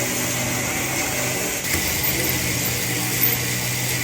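A machine running steadily with a constant hum and hiss, like a power tool or motor under way.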